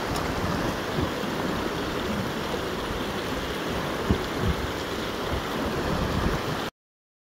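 Shallow rocky stream rushing steadily over stones, with a few soft low thumps; the sound cuts off suddenly near the end.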